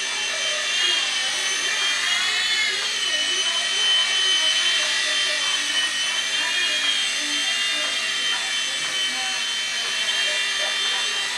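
Blade mSR micro RC helicopter in flight: the high-pitched whine of its small electric motors and spinning rotor, wavering up and down in pitch as the throttle changes.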